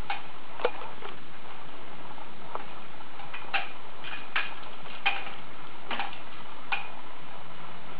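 Hanging plastic toys of a baby play gym clacking as the baby bats at them: sharp, irregular clicks about once a second, over a steady hiss.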